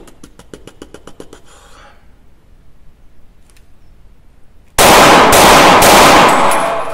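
Glock 26 9×19 mm subcompact pistol fired in a rapid string of several shots, starting about five seconds in, with each report echoing briefly in a small indoor range booth.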